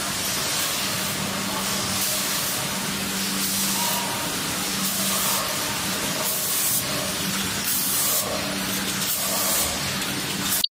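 Rotary pre-made bag packing machine running: a steady machine hum with a low drone, and short hisses of air from its pneumatic cylinders every second or so.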